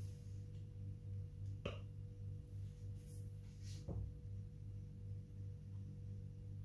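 Two light clinks about two seconds apart, fingers knocking against a stainless-steel mixer-grinder jar while picking a lemon seed out of the spice mix. A steady low hum runs underneath.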